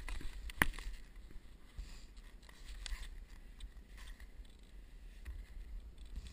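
Skis scraping and clattering on packed snow in a small wipeout, with one sharp knock just over half a second in, then scattered snow crunches. Wind rumbles on the microphone.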